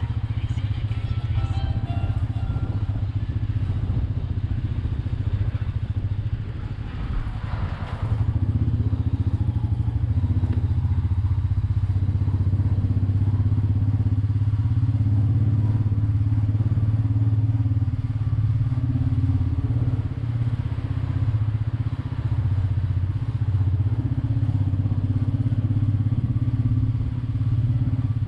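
Royal Enfield Meteor 350's single-cylinder engine running steadily under the rider while riding. It eases off briefly about six seconds in and picks up again about eight seconds in.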